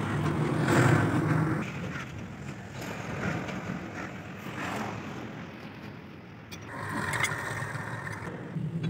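A motor vehicle's engine running, louder in the first two seconds and again near the end.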